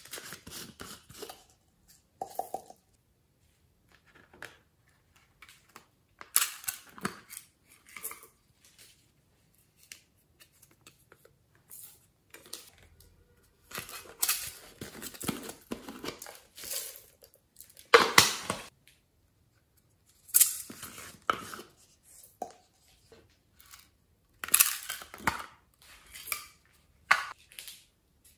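Hard plastic novelty bottles being handled and their caps worked open: irregular plastic clicks, crackles and scrapes in bursts with short pauses, the loudest snap about two-thirds of the way through.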